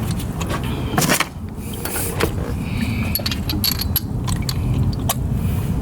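Scattered metallic clicks and clinks of hand tools working on the thermostat housing screws, with a few bright ringing taps a little past the middle. A steady low rumble runs underneath.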